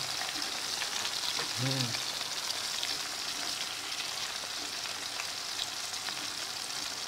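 Eggplant slices frying in hot oil in a pan: a steady sizzle with fine crackling from the bubbling oil.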